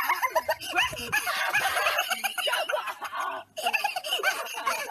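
People laughing in quick runs of short repeated bursts, mixed with some speech. The sound cuts out for a moment about three and a half seconds in, then the laughter and talk resume.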